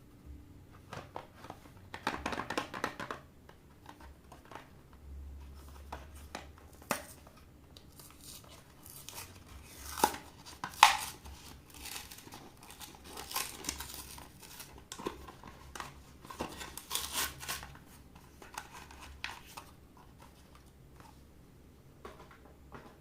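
Packaging being torn open and crinkled by hand, in irregular crackly bursts, with a couple of sharp snaps about halfway through.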